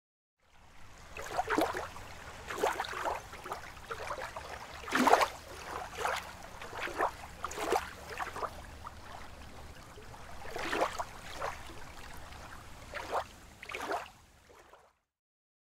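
Irregular short splashes and sloshes of water over a steady low wind rumble.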